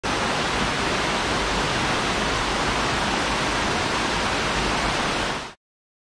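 Uracher Wasserfall, water pouring over its mossy rock ledge: a loud, steady rushing, close by, that cuts off suddenly about five and a half seconds in.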